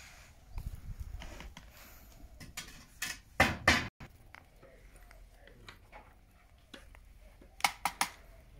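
Sharp metal clanks and clinks from the steel pouring ladle and hand tools at a sand-cast aluminium mould: a few loud knocks about three to four seconds in, and three quick ones near the end.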